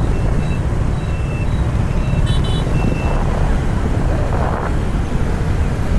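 Steady rumble of slow, jammed traffic: many vehicle engines running together. A pair of short high beeps comes a little over two seconds in.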